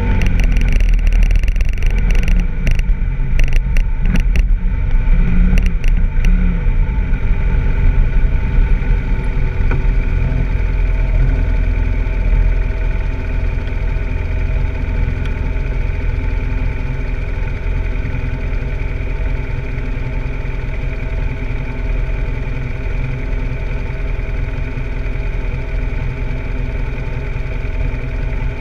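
BMW F800GS parallel-twin engine running as the bike rolls slowly on a dirt road, with scattered clicks in the first few seconds. It then idles steadily once the bike has stopped.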